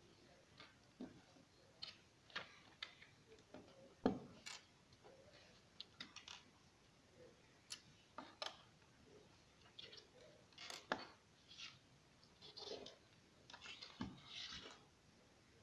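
Lego bricks being handled and pressed together: scattered small plastic clicks and taps, the sharpest about four seconds in.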